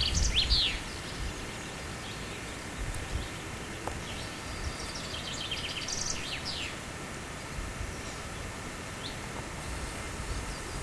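Small birds chirping: a few quick falling calls at the start, a cluster of chirps around the middle and one short call near the end. Underneath runs a steady low rumble of wind on the microphone.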